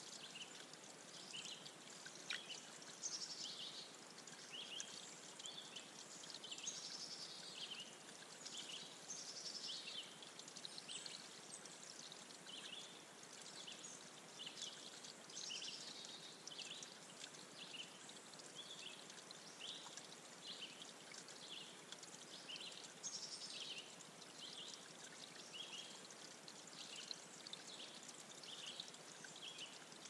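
Faint water trickling over a small rock waterfall into a shallow pond, with a steady run of short high notes.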